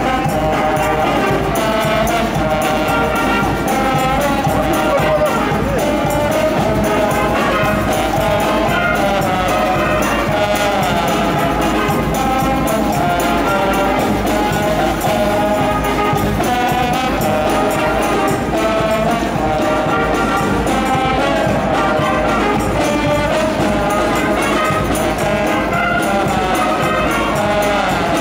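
A school wind band of brass and saxophones, with a tuba on the bass line, playing a tune together at a steady, full volume.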